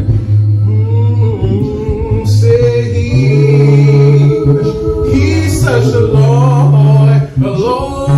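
A cappella gospel ensemble singing in harmony: voices hold chords over a deep sung bass line that shifts every second or two, with a male lead on the microphone. The sound drops briefly about seven seconds in.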